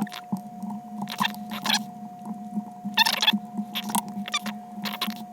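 Small clicks and scratchy taps from handling the opened iPod and its parts on a work surface, in scattered clusters, over a steady electrical hum.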